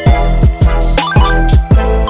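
Background music: a hip-hop beat with deep kick drums that drop in pitch on each hit, under steady keyboard notes.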